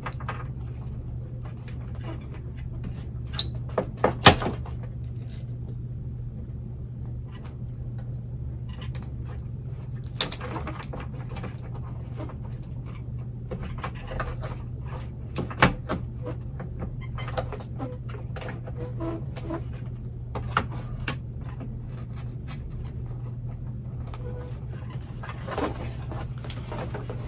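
Hand pruning shears snipping through orchid roots and a plastic basket pot, in scattered sharp clicks over a steady low hum. The loudest snips come about four seconds in.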